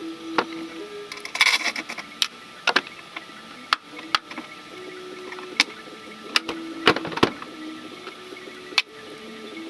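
Hand tools working on a car's door fastenings: irregular metallic clicks and knocks, with a louder burst of clatter about a second and a half in and two sharp knocks near the seven-second mark.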